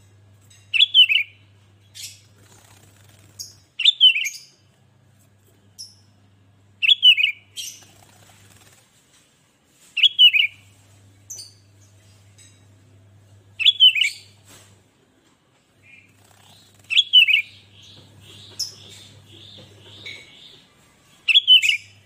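Sooty-headed bulbul (kutilang) singing a short, loud falling whistled phrase about every three seconds, seven times, with sharp high chips between phrases and a quick run of chattering notes shortly before the last phrase.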